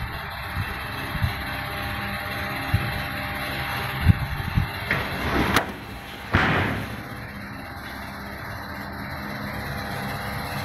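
Oven door and wire racks of a freestanding cooking range being handled and shut: a few knocks about four seconds in, a sharp click, then a louder clunk that fades over half a second, over a steady background noise.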